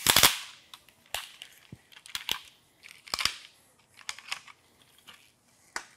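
Peak Design Travel Tripod legs being pulled out and set up: a loud clatter right at the start, then a string of short sharp clicks and knocks from the leg sections and locks.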